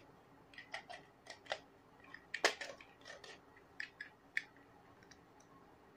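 Plastic parts of an inhaler spacer with mask being handled and fitted together: about a dozen light, irregular clicks and taps, the loudest about two and a half seconds in.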